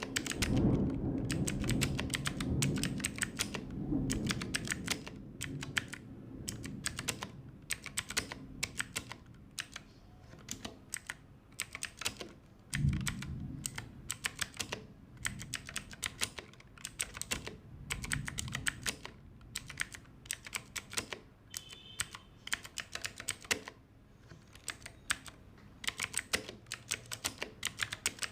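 Typing on an Ajazz AK33 mechanical keyboard with clicky blue switches: a fast, uneven stream of sharp keystroke clicks. Heavier low thuds come in about a second in and again around halfway, and the typing pauses briefly near the end.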